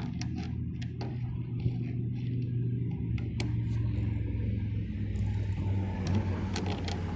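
A steady low mechanical hum, with a few light clicks and taps over it.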